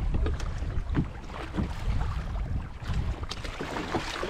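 Wind buffeting the microphone over water slapping and splashing against a kayak's hull on choppy open ocean, in uneven gusts and splashes.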